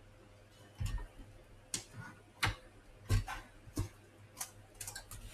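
A string of short, light plastic clicks and taps on a laptop, roughly one every two-thirds of a second, with a few quicker ones near the end.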